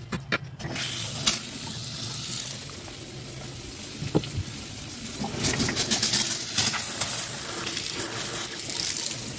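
Kitchen mixer tap running water into a sink bowl and down the drain, as a steady hiss that grows stronger for a few seconds around the middle while the pull-down spray head sprays. A few sharp clicks come just before the water starts.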